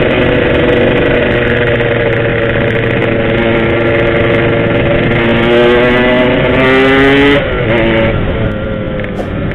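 Yamaha RX-King's two-stroke single-cylinder engine running under way, holding a steady note, then pulling higher for a couple of seconds before the throttle is shut about seven seconds in and the note drops and quietens.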